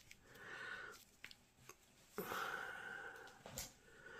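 A person's faint breathing close to the microphone: two soft, unpitched breaths, one about half a second in and a longer one about two seconds in. A few small clicks come from the plastic-wrapped coin roll being handled.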